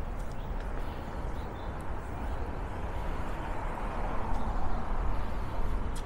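City street traffic: a steady rumble of passing vehicles that swells about four seconds in and eases again near the end.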